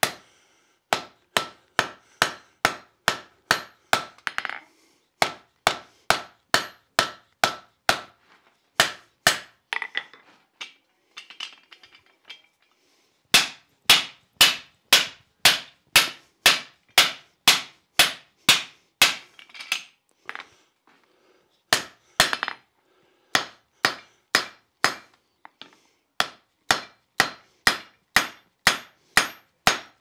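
Blacksmith's hand hammer striking hot steel flat bar on an anvil, partly through a Smithing Magician fullering tool sitting on the anvil, to set in shoulders. The blows come at about two a second, with a couple of short pauses of lighter taps. The early blows carry a ringing tone.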